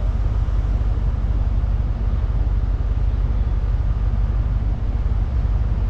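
A vehicle engine idling steadily: an even low rumble.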